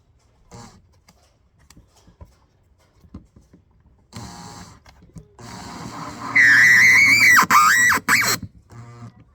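Power drill running in short bursts, then held on from about halfway with a steady high whine that dips twice near the end as the motor loads, as when driving screws.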